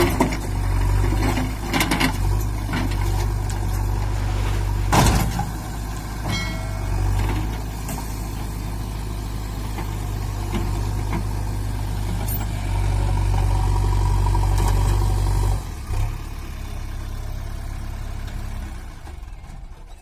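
JCB 3DX backhoe loader's diesel engine running steadily while the backhoe arm works, with a few knocks and clatter in the first seconds, the sharpest about five seconds in. The engine note drops back about three-quarters of the way through and fades out at the end.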